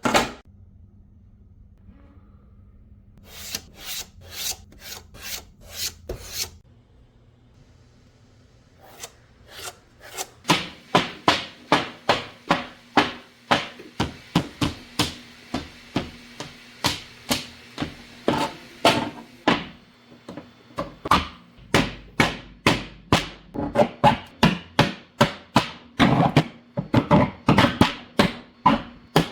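A run of sharp clicks or taps, roughly two to three a second, beginning about ten seconds in after a short cluster a few seconds earlier, over a faint steady hum.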